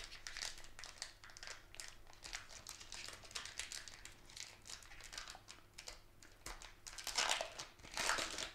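Foil Pokémon booster pack being worked open by hand, its wrapper crinkling in quick, irregular crackles that grow louder near the end.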